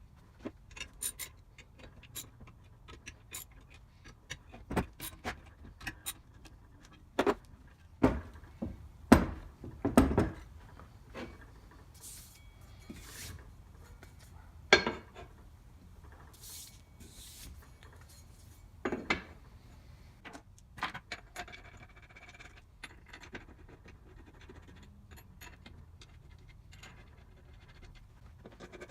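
Metal parts of a power hacksaw being handled and fitted together by hand: scattered knocks, clinks and scrapes, with a run of heavier thuds about eight to ten seconds in and single knocks near fifteen and nineteen seconds.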